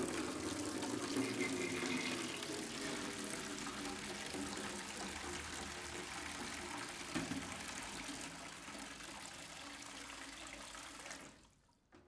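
Water running steadily, easing off slowly, then stopping abruptly about eleven seconds in.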